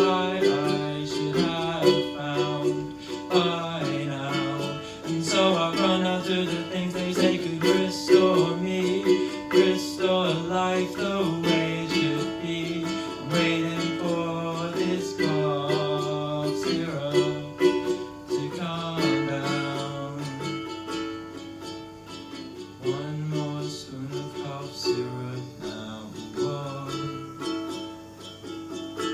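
Ukulele playing an instrumental passage of strummed chords, with no singing. The chords change every second or so, and the playing grows a little softer in the last third.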